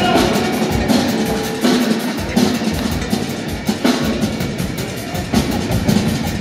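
Live rock band playing an instrumental jam, with the drum kit hitting strongly and steadily under electric guitar and keyboards, recorded from the audience in a concert hall.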